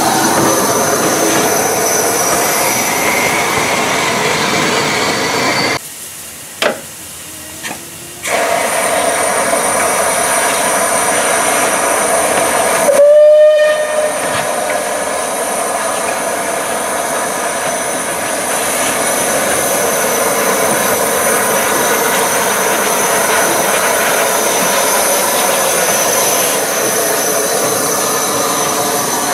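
Steam hissing steadily from a rebuilt Bulleid West Country class Pacific steam locomotive, 34052 Lord Dowding. A short whistle blast sounds about halfway through and is the loudest moment. The hiss drops away for about two seconds shortly before it, with two clicks in the gap.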